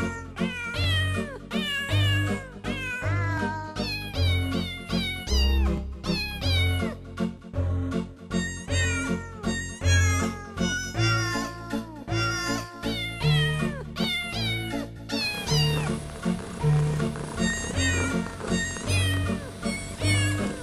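A cat's meows strung together as a Christmas carol tune over an instrumental backing with a bass line, one short meow after another in a steady beat.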